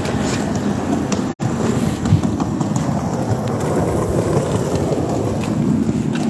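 A train passing through the station: a loud, steady rumble, broken by a brief total dropout of the audio about a second and a half in.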